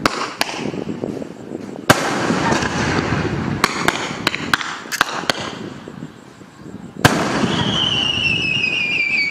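Aerial fireworks going off: a rumbling crackle with sharp bangs and cracks scattered through it. About seven seconds in comes a loud bang, followed by a long whistle slowly falling in pitch.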